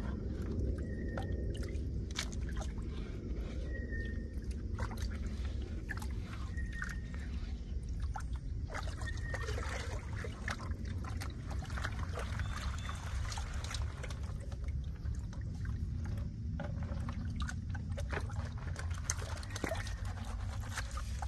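Water sloshing and trickling as a metal gold pan is worked in a shallow creek hole, with gravel clicking and scraping in the pan. A few short high chirps sound in the first half over a steady low rumble.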